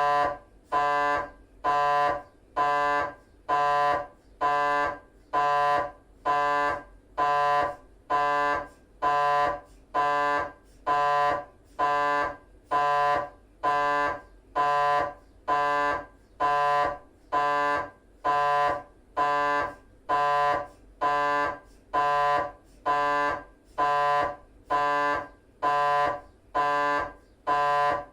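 GE 3 T MRI scanner's gradient coils buzzing during a T1 axial 3D FSPGR sequence: a loud, even, tonal buzz pulsing about once a second, each pulse about half a second long.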